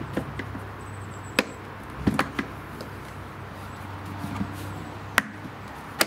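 Plastic lid and latch of a RIDGID Pro-Pack 4500 shop vacuum's storage compartment being worked by hand: a few sharp plastic clicks and knocks as the latch snaps shut, the loudest about five seconds in.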